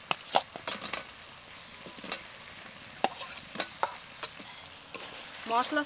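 A spatula stirring and knocking in a pan as fried potatoes are turned into sizzling spice paste, with a dozen or so sharp clicks over a faint frying hiss.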